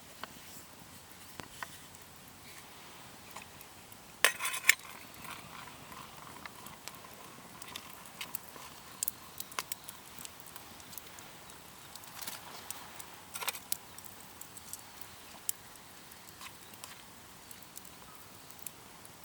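Scattered small clicks and knocks, with a brief louder clatter of two hits about four seconds in that leaves a faint ringing, and another small clatter later on.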